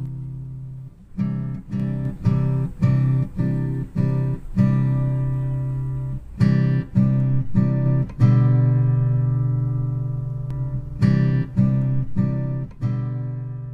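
Background acoustic guitar music: strummed and plucked chords in a slow rhythm, with a long held chord midway, the last chord ringing and fading away near the end.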